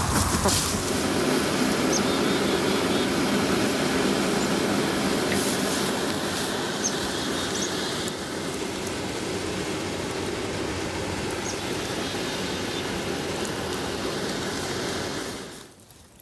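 Maple sap at a rolling boil in the pan of a homemade wood-fired evaporator: a steady bubbling rumble that eases slightly about halfway through and cuts off near the end.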